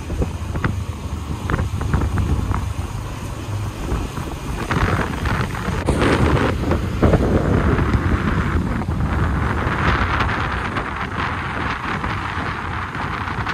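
Wind buffeting the microphone: a heavy low rumble with hiss that swells about five seconds in and again from about ten seconds.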